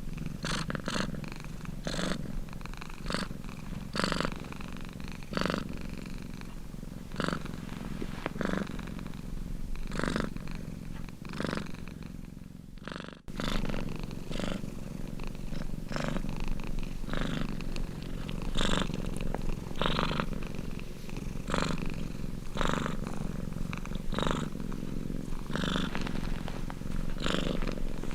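Domestic cat purring steadily, the purr swelling with each in and out breath about once a second. The sound dips and cuts out for an instant about halfway through, then resumes.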